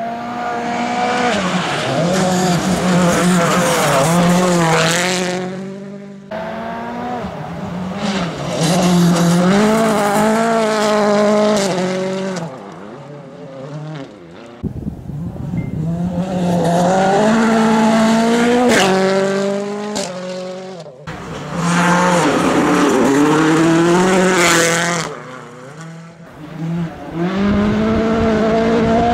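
Ford Fiesta WRC rally car's turbocharged 1.6-litre four-cylinder engine revving hard at full throttle, its pitch climbing and dropping back with each gear change, in several loud runs broken by sudden drops in sound.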